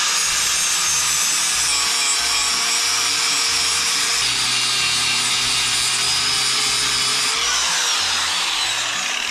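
Corded angle grinder running at speed against the star-shaped stub shaft on the bottom of a Husqvarna YTH21K42 mower deck spindle, grinding it down flush with the blade: a steady high whine with a rough grinding noise. Its pitch rises and falls briefly near the end.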